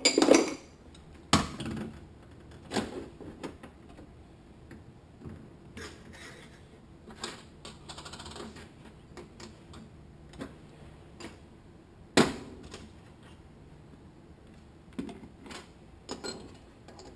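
Metal automatic-transmission parts knocking and clinking against a metal workbench as they are picked up and set down: a handful of sharp knocks, the loudest near the start and past the middle, with lighter clatter between.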